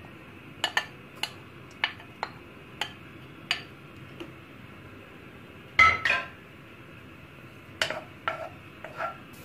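Spoons knocking and clinking against a bowl and a nonstick wok as minced garlic is scraped in and stirred with a wooden spoon: about a dozen separate taps, the loudest pair about six seconds in.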